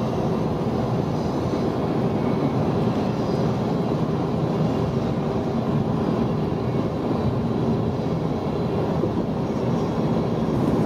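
Freight train of empty covered grain hoppers rolling past steadily, wheels running on the rails with an even rumble and a low steady hum.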